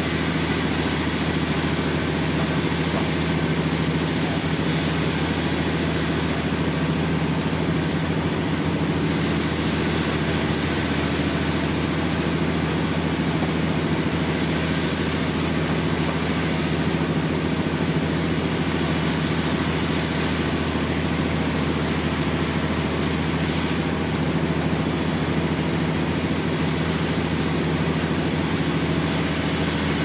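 Sawmill running steadily as it saws a large trembesi log: an unbroken engine drone with a low hum and a hiss over it, holding level throughout.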